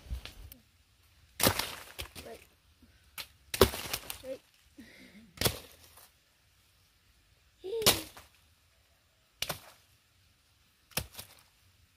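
Star fruit dropping onto leaf litter: about seven sharp thuds and cracks, one every one to two and a half seconds, with quiet between them.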